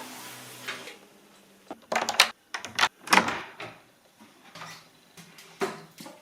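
Household handling sounds: a short hiss at the start, then a run of sharp knocks and clacks, loudest around the middle.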